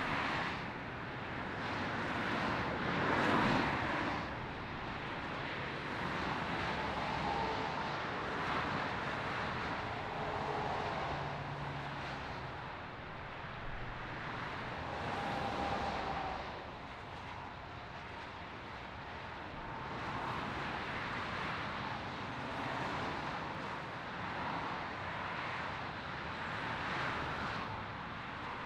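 Motorway traffic: a steady rush of tyres and engines from many cars and lorries, swelling and easing as vehicles pass, loudest about three seconds in.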